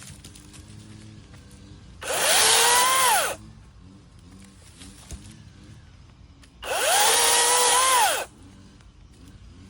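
Ego 16-inch battery-powered electric chainsaw run in two short bursts, each a whine that spins up quickly, holds for about a second and a half and winds down when the trigger is let go.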